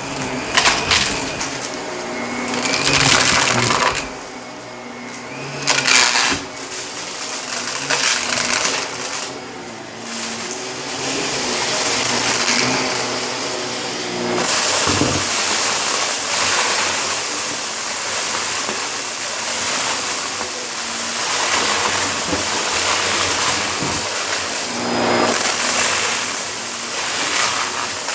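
Shark vacuum cleaner running over carpet, with crunching and rattling of debris drawn up through it. The sound drops away briefly twice early on, then turns into a steadier, louder rush for the second half.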